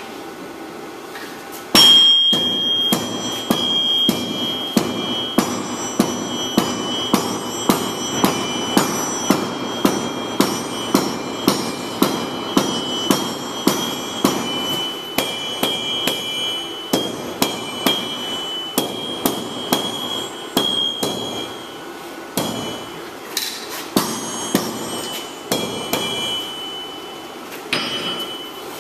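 Hand hammer forging red-hot metal on an anvil: steady blows about two a second, each with a bright ringing anvil tone. The hammering breaks off briefly about three quarters of the way through, then resumes for a few more blows.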